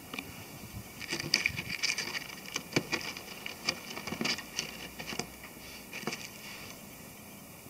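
Irregular crackling clicks, taps and light scrapes, thickest in the middle of the stretch, as termite-eaten wood and its crumbly debris are handled up close.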